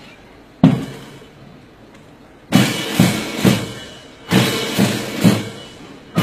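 Military band drums at a parade: one loud drum stroke just over half a second in, then from about two and a half seconds in a steady beat of about two strokes a second.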